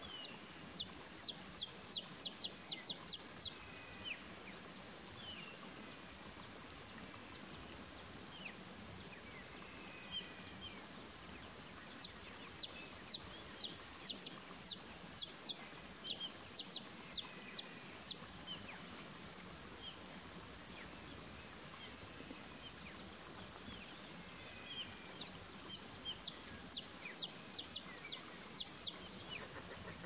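Wild birds calling in runs of quick, high, downward-sweeping chirps, in several bursts, over a steady high-pitched insect drone that pulses evenly.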